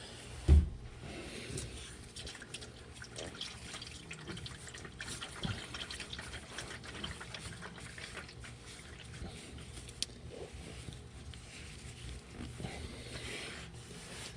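Hot, black used engine oil pouring from the open drain-plug hole of a Duramax LM2 diesel's oil pan into a drain pan, a steady trickling and splashing stream. A single low thump about half a second in.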